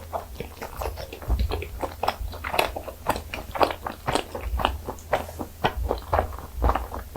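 Close-up eating sounds: a person chewing butter-pan-fried rice cake, with wet, sticky mouth smacks and frequent small crisp clicks.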